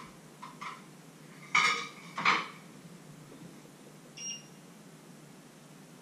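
Kitchenware clattering: a few light clinks, then two loud clattering knocks of dishes and bowls about a second and a half and two seconds in. A short high beep sounds about four seconds in.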